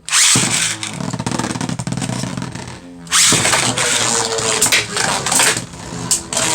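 Two Beyblade spinning tops launched into a plastic stadium, whirring and scraping with rapid clacking hits against each other. The sound starts suddenly at the launch and gets loud again about three seconds in.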